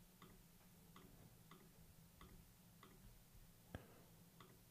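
Near silence with faint computer-mouse clicks at an uneven pace, roughly one every half second to a second, and one louder click near the end, as tracks are clicked to mute them.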